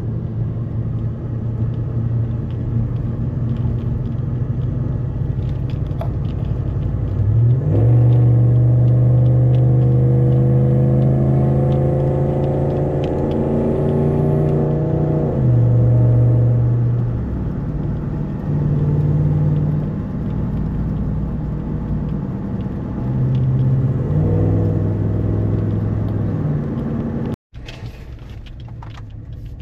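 Ram pickup truck's engine and road rumble heard from inside the cab while towing a trailer. The engine note rises steadily for several seconds as the truck accelerates under load, drops at a gear shift, then rises and falls with the throttle. Near the end the sound cuts out for a moment and comes back quieter.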